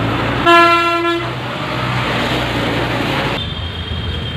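A vehicle horn gives one short toot about half a second in, over the steady low hum of an engine running.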